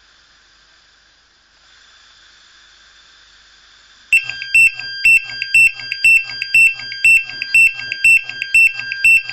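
A steady hiss of gas escaping from an open, unlit stove burner. About four seconds in, a portable gas detector (explosimeter) goes into alarm with loud, rapid multi-tone beeping, about two beeps a second: it has detected the combustible gas.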